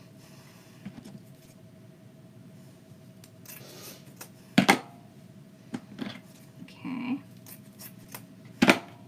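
Scissors cutting ribbon: a few sharp snips and clicks, the loudest two about four seconds apart, one midway and one near the end.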